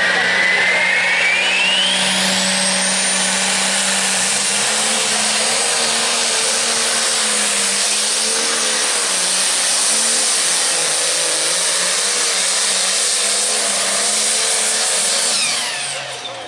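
Turbocharged diesel engine of a limited pro stock pulling tractor at full throttle under the load of the sled. A whine climbs steeply over the first few seconds as the turbo spools up, then a loud, steady roar holds with the engine note wavering around the middle. The engine drops off sharply near the end.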